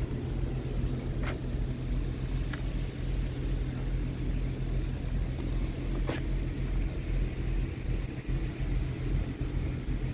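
Scania R tractor unit's diesel engine idling steadily, a low even hum, with a few faint clicks over it.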